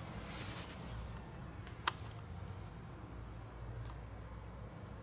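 Small clicks and ticks of tools and parts being handled in a smartphone repair, with one sharp click about two seconds in, over a low steady hum.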